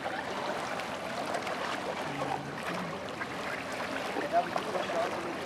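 Small waves lapping and splashing at the lakeshore, a steady wash of water noise, with a brief louder sound about four seconds in.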